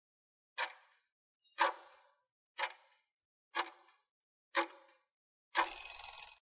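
Countdown-timer sound effect: five sharp ticks, one a second, then a short alarm as the stopwatch reaches zero, just under a second long with a steady high tone in it.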